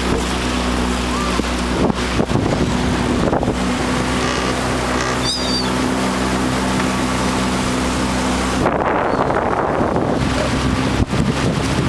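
Boat engine running steadily, with wind buffeting the microphone and the sound of water along the hull.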